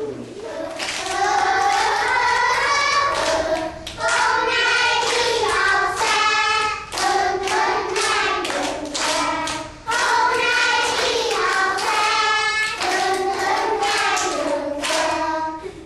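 A group of children singing a song together while clapping along in a regular rhythm, with short breaks between phrases.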